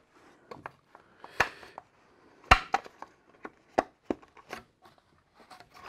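Hard plastic parts of a Hasbro Endor Bunker playset clicking and knocking together as they are fitted and pressed into place: a scatter of sharp clicks, the loudest about two and a half seconds in.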